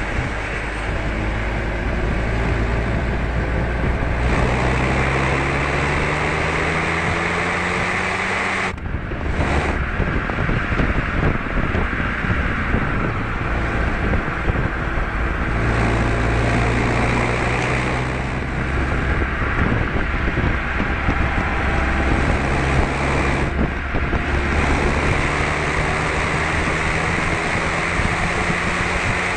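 Renault Megane RS 250's turbocharged 2.0-litre four-cylinder engine pulling hard on track, its pitch climbing through the gears in several long pulls. The engine note drops sharply about nine seconds in and again near the 24-second mark as the driver lifts off, all under steady wind and road noise.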